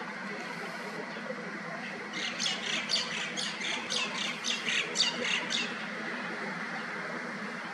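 A bird calling in a quick series of about a dozen short, sharp calls, roughly four a second, starting about two seconds in and stopping after three and a half seconds, over a steady background noise.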